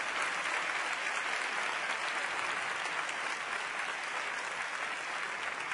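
Large seated audience applauding steadily in an auditorium after a performance.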